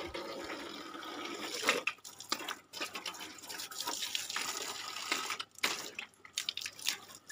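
Water pouring from a garden hose and splashing onto a wet concrete floor, a steady rushing hiss with a couple of brief lulls.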